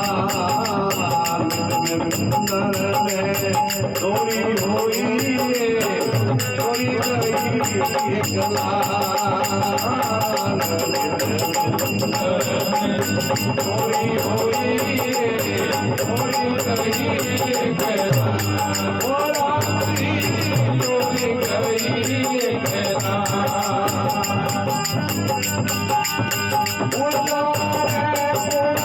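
Rajasthani devotional bhajan music: a wavering melody carried over a fast, even, jingling hand-percussion beat.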